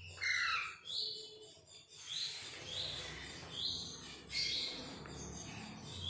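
Alexandrine parakeet chick giving short high begging calls, about seven in all, roughly one a second, while it is hand-fed formula from a syringe.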